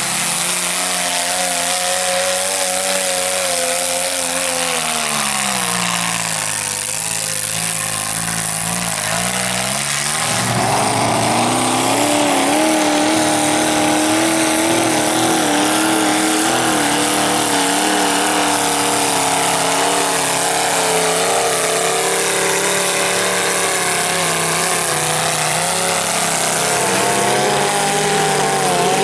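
Mud truck engine running hard at high revs while churning through a mud pit, with the hiss of spraying mud. The revs sag for a few seconds about a fifth of the way in, then climb sharply and stay high and a little louder for the rest.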